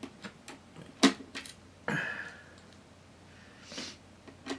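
Small clicks and taps of a precision screwdriver and plastic laptop parts being handled inside an opened laptop, with one sharper click about a second in and a short scrape a second later.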